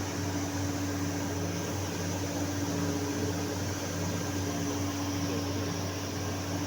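Steady hum of running compressed-air machinery, with an even hiss over it and a faint pulsing beat low in the hum.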